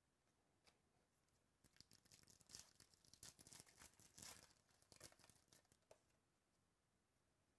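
Foil trading-card pack wrapper being torn open and crinkled by hand, a faint crackling tear lasting about three seconds from about two seconds in.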